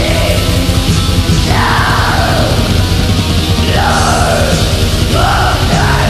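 Black metal demo recording from 1994: fast, dense distorted guitars and drums with harsh screamed vocals. There are three drawn-out screams, each falling in pitch, about one and a half, four and five seconds in.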